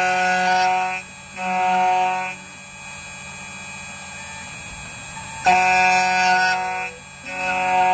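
Background music: sustained synth chords in a repeating pattern, a louder chord then a softer one, twice, about five seconds apart, over a quieter steady pad.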